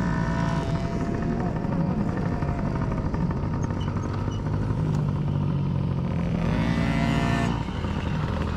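Several small 50cc pee-wee dirt bike engines running during a race. One revs up sharply about six and a half seconds in, then drops off about a second later.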